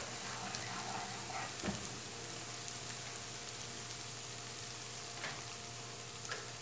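Garlic-ginger paste sizzling steadily in hot oil in a non-stick pan, with a few faint clicks.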